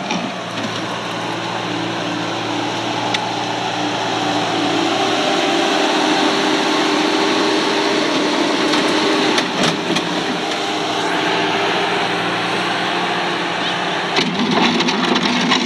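Bobcat S250 skid-steer loader's diesel engine running steadily, rising a little in pitch and loudness about four seconds in.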